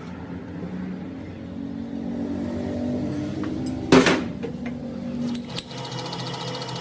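A workshop machine running with a steady motor hum, with one loud sharp metallic clank about four seconds in.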